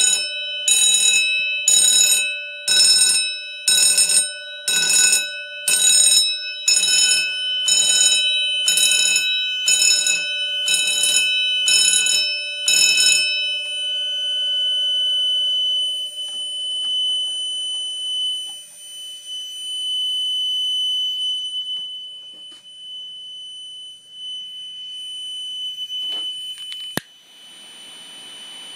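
A fire alarm sounds in even pulses, about one blast a second, each a harsh tone with many overtones, then stops after about thirteen seconds. A steady high-pitched buzzer tone keeps sounding after it. Near the end there is a sharp click, then a hiss.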